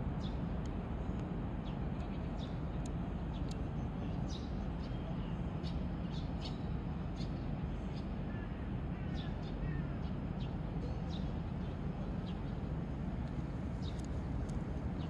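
Birds chirping and calling in short, scattered notes over a steady low outdoor background rumble.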